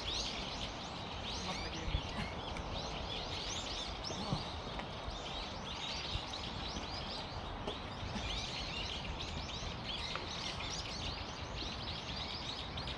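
Many small birds chirping continuously in quick overlapping calls, over a steady low background rumble, with one brief knock about two seconds in.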